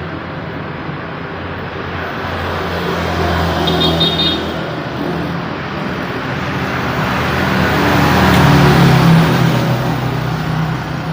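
Busy city road traffic: a steady din of engines and tyres from cars, motorcycles, buses and trucks. A short high horn beep sounds about four seconds in, and a vehicle passes close, getting louder around eight seconds in.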